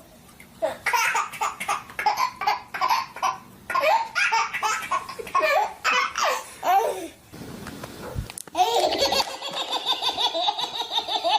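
A baby laughing hard in quick, repeated bursts; after a short break about two-thirds of the way through, it goes into a fast, steady run of giggles.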